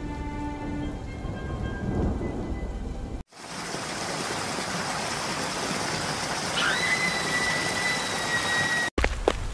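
Steady rain with thunder. About two-thirds of the way in, a shrill whistle starts with a short upward slide and is held on one pitch until it cuts off suddenly. Quick running footsteps begin right at the end.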